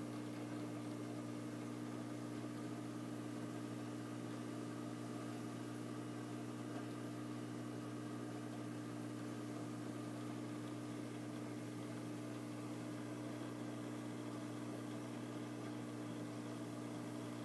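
Steady hum of running reef aquarium equipment, with a light even hiss.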